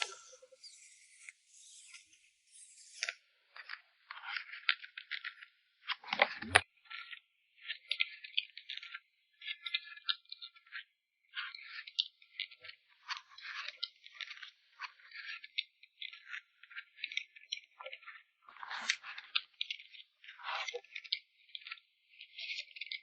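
Plastic sleeves and packaging crinkling and rustling in irregular crackly bursts as photocards are packed by hand, with one dull knock about six seconds in.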